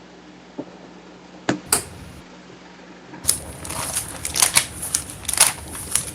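Pages of a Bible being leafed through: a few soft clicks and taps, then from about three seconds in a quick run of crisp paper rustles and crackles as the pages are turned.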